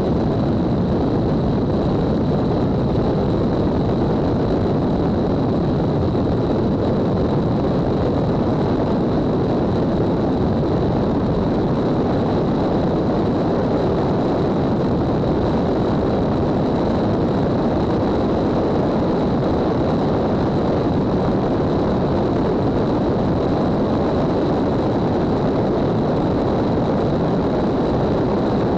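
Twin-engine propeller airplane climbing out just after takeoff: a steady, unchanging drone of engines and propellers mixed with rushing air at the wing, with a faint thin high whine running over it.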